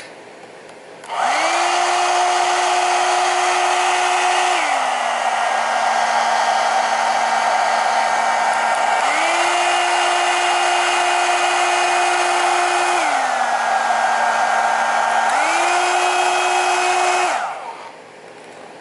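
One-step hot-air dryer brush running, switched on about a second in and off near the end. Its motor whine and airflow drop to a lower pitch and rise back again, twice.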